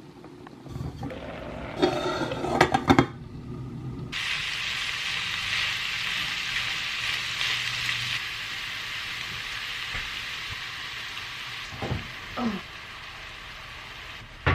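Ground beef and mushrooms frying in a hot pan. Knocks and clatter of stirring come first, then a steady sizzle sets in about four seconds in.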